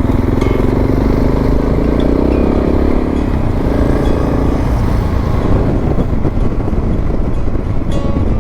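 Suzuki DR650's single-cylinder four-stroke engine running under way over the rush of wind. The engine note eases back about five seconds in.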